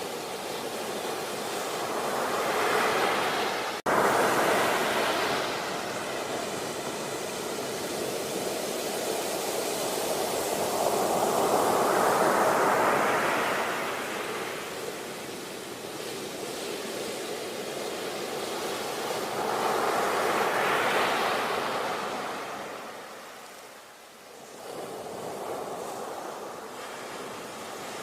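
Sea waves breaking and washing up the shore, the surf swelling and easing in three slow surges about nine seconds apart, with a quieter lull near the end.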